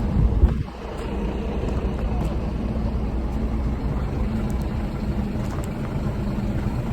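Vehicle engine running steadily with a low hum, with one sharp knock about half a second in.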